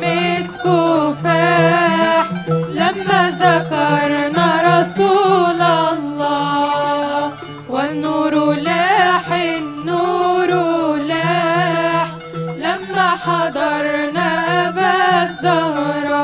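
Women's vocal group singing an Islamic devotional nasheed together, with ornamented, wavering melody lines over a steady low oud accompaniment.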